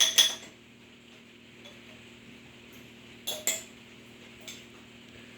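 A spoon clinking and scraping against a honey jar as honey is scooped out and eaten, in short sharp clinks: a cluster right at the start, two more a little after three seconds in, and a faint one about a second later.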